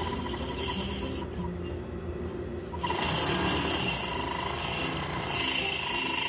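Siruba high-speed industrial sewing machine running in three short spells with a whirring whine, driving its bobbin winder to wind thread onto the bobbin.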